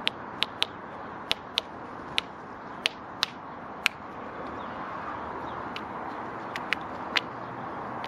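Great spotted woodpecker hammering its bill on a cobnut wedged in tree bark: about a dozen sharp, irregular taps, with a pause of nearly two seconds midway. A steady hum runs underneath.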